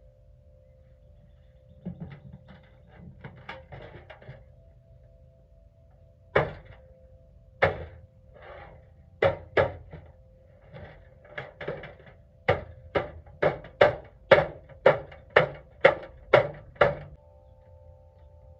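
Sharp blows on the dented metal bottom of a Craftsman box, knocking the dents back out: a few scattered strikes, then a steady run of about two a second near the end.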